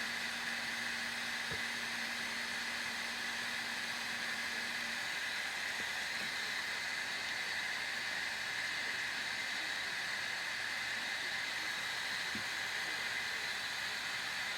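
858D hot air station's blower running, a steady rush of air from the handpiece, with the heating element giving no heat: the air is not even getting warm. A faint low hum stops about five seconds in.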